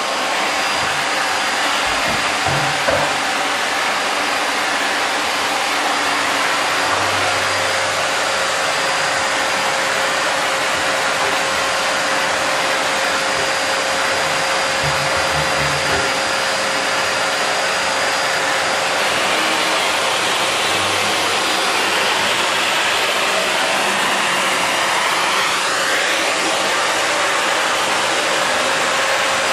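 Canister vacuum cleaner running steadily with a constant whine, with a few low bumps as the nozzle moves over the wooden floor and a brief shift in pitch near the end.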